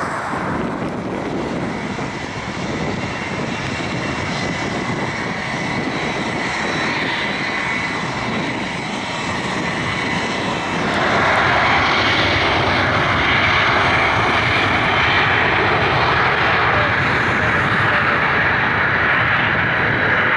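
Boeing 767-277's twin turbofan engines running at taxi power as the jet rolls. About halfway through, the roar gets louder and brighter and stays up.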